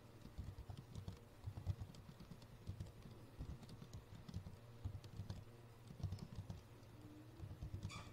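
Faint typing on a computer keyboard: irregular keystrokes in quick runs with short pauses between words.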